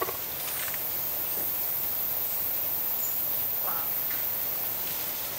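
Central American squirrel monkeys giving a few short, high-pitched peeps that dip in pitch, over a steady hiss.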